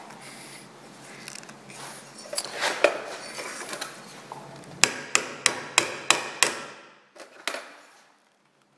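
A steel motorcycle saddlebag mount being worked in a bench vise with copper jaws: scraping and clicking of metal, then a quick run of six sharp metallic knocks, about three a second, with a short ringing after each. One more knock follows a little later.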